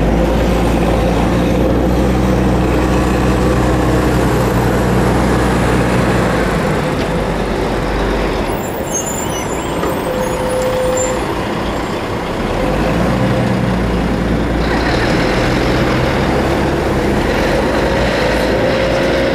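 City buses driving past close by: a steady low engine rumble from one bus, a short lull just under halfway through, then a second bus engine rising again in the second half.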